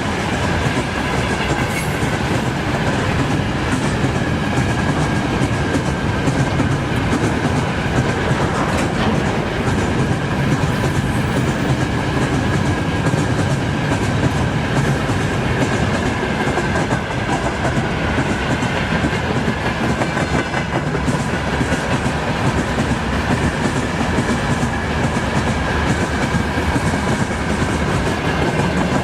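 A train's cars rolling past at steady speed, wheels clattering over the rail joints.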